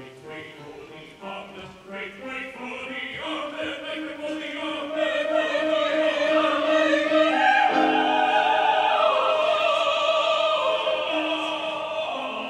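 Operatic vocal ensemble, several voices singing in harmony with vibrato, swelling from about five seconds in to a loud long-held chord that eases off near the end.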